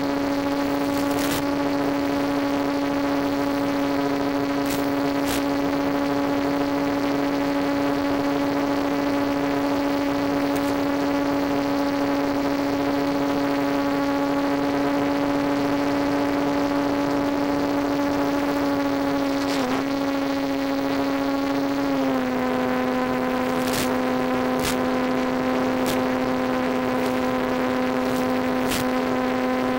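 Electric motor and pusher propeller of a Multiplex EasyStar RC plane, heard from on board as a steady buzzing whine. Its pitch dips briefly just before twenty seconds in, then settles a little lower about twenty-two seconds in as the throttle eases. A few faint clicks sound through it.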